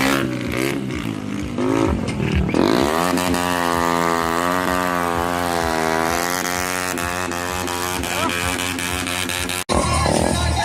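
KTM motorcycle engine revving up and down in short blips, then held at high revs for about seven seconds with the pitch wavering slightly. It cuts off abruptly near the end, giving way to a different, busier sound.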